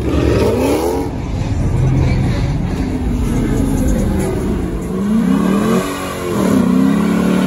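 Muscle-car V8 engines revving hard as the cars go past, in several rising and falling revs; the loudest come about five seconds in and near the end, as a Dodge Challenger does a burnout.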